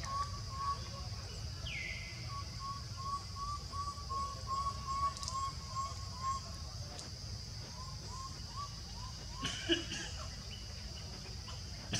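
Forest ambience: a steady high insect drone and a bird repeating a short note two or three times a second, pausing briefly past the middle. A brief sharp noise sounds about ten seconds in.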